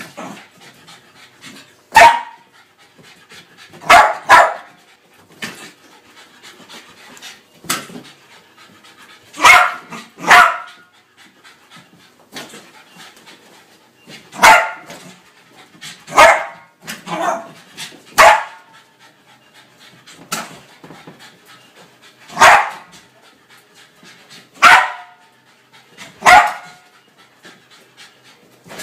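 Jack Russell terrier giving loud, sharp barks, single or in quick pairs, about every two seconds, with panting between them.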